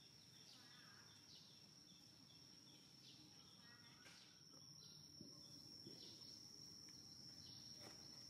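Faint outdoor ambience: a steady high-pitched insect drone, such as a cricket or cicada, over a low background hiss.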